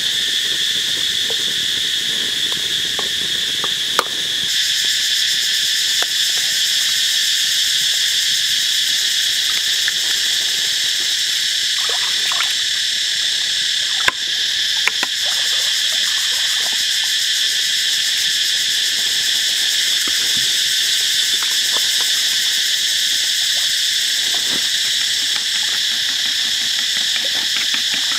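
Loud, steady chorus of calling insects, a high drone in several layers. A few sharp clicks and taps stand out, one about halfway through as an egg is cracked into a coconut-shell bowl.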